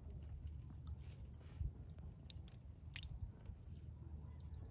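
A hand sloshing and scooping through shallow water in a woven bamboo basket: small wet squishy splashes with scattered faint clicks, the sharpest about three seconds in, over a low rumble.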